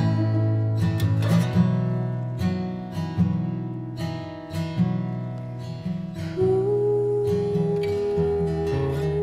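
Acoustic guitar playing chords, each one plucked or strummed and left to ring. About two-thirds of the way through, a long steady sung note without words comes in over the guitar.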